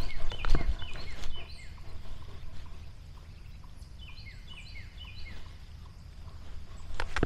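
A songbird singing two short runs of quick, high falling chirps, one near the start and one about four seconds in, over a low steady rumble. A few knocks sound in the first second or so.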